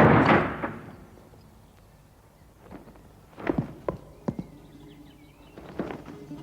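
A sudden loud noisy crash-like impact that fades within about a second, followed by a few scattered knocks and clicks.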